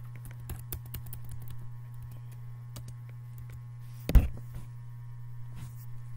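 Computer keyboard typing: quick key clicks, with a single loud thump about four seconds in, over a steady low hum.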